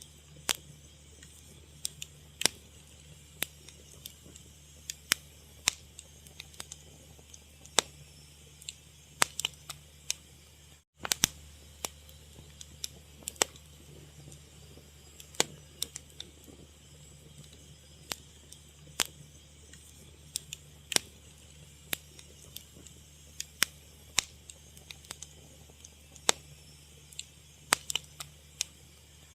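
Fire crackling, with irregular sharp pops of varying loudness over a steady low hum. The sound cuts out for an instant about eleven seconds in.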